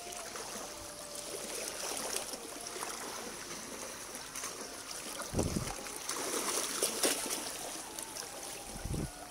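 Shallow stream water sloshing and trickling around someone wading through it, over a steady high whine in the background. Two dull low thumps come about halfway through and near the end.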